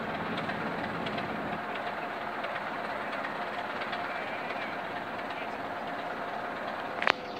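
BR Class 26 diesel locomotive D5343 moving slowly along the track, its Sulzer six-cylinder engine running steadily with wheel and rail noise. There is one sharp click near the end.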